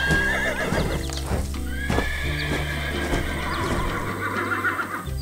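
Horse whinnying, with hooves clip-clopping, over background music.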